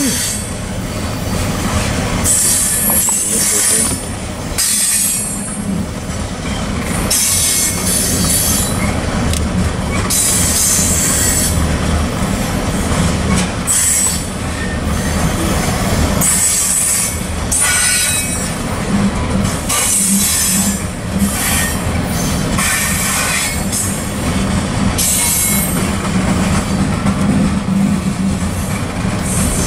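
Coal train's freight cars rolling past: a steady rumble of steel wheels on rail, with high-pitched wheel squeal coming and going every two to three seconds.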